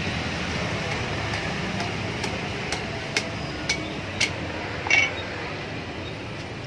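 A cleaver chopping into the husk of a young coconut: about six sharp knocks in the middle of the stretch, the last one the loudest, with a short metallic ring.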